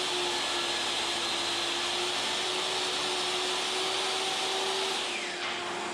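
DeWalt DWE7491 10-inch table saw running at speed during a test run: a steady motor whine with a rushing noise. About five seconds in, a high tone slides down in pitch.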